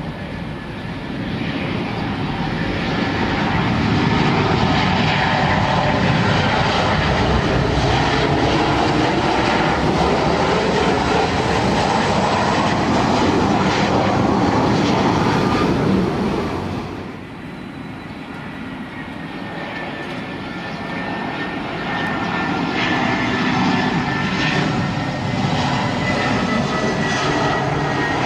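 Jet airliners on final approach: a Boeing 737-900ER's turbofan engines roar as it passes, with slowly sliding tones, and the sound breaks off suddenly about two-thirds of the way through. Then an Airbus A320's engine noise builds again with a faint steady whine over the roar.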